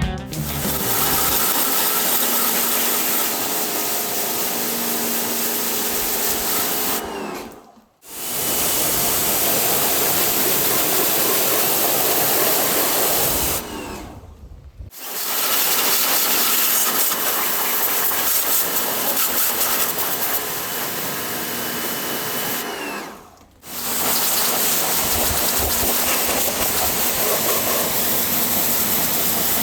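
Pressure washer spraying with a steady hiss over its motor hum. It cuts out briefly three times as the trigger is released, then starts again each time.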